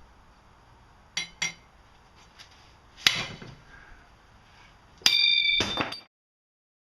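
A cracked, hardened steel knife blade swung hard into an anvil: two light clicks, a sharp metallic strike about three seconds in, then a louder strike near the end that rings with clear high tones for about a second as the blade breaks at its crack. The sound cuts off suddenly after the ring.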